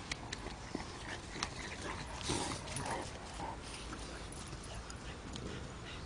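Dogs playing, one dog giving a short cry a little over two seconds in, among a few light clicks and knocks.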